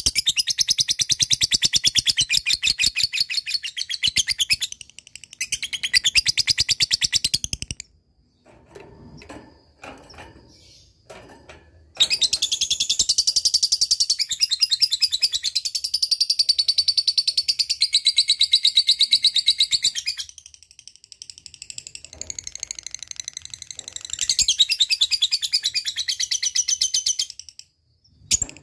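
Blue lovebird singing its ngekek: long, very fast, high-pitched chattering trills lasting several seconds each, separated by short breaks. A quieter pause of a few seconds, with only soft scattered sounds, comes about a third of the way in.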